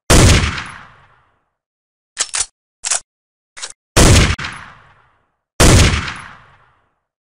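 Sound effect of a gun being fired and reloaded. A shot with a long fading tail, then four short metallic clicks of the action being worked, then two more shots about a second and a half apart, each trailing off.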